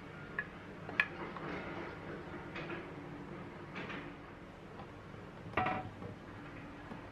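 A few light clicks and knocks of a wooden spoon against a glass baking dish as marinated cherry tomatoes are scraped out, over a low steady room hum; the loudest is a short ringing clink about five and a half seconds in.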